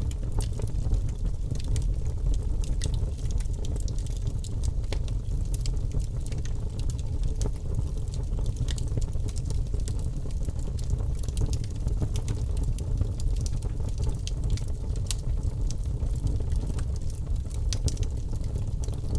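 Wood fire crackling in a fireplace: a steady low rumble of burning with frequent small, sharp pops and snaps scattered throughout.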